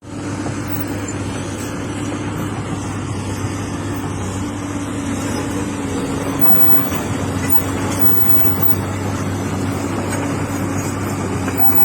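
Komatsu hydraulic excavator's diesel engine running at a steady speed, a constant low hum.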